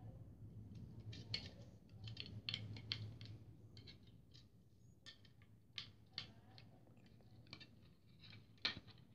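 Faint, irregular small clicks and crinkles, several close together in places, over a low steady hum.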